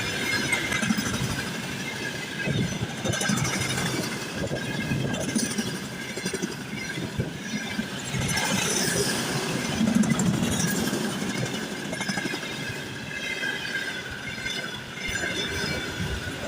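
Freight train of container wagons rolling past, with a steady rumble of wheels on rail and a thin, high wheel squeal running through it.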